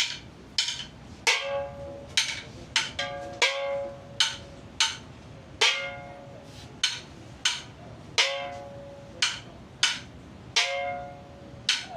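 Chinese ritual percussion: sharp wooden and metal strikes at an uneven pace of about two a second, some of them ringing on with a clear pitched tone like a small gong or bell.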